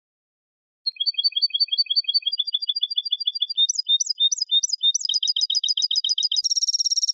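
European goldfinch singing: after nearly a second of silence, series of quick repeated high notes, each series of a different note type, speeding up into a fast trill near the end.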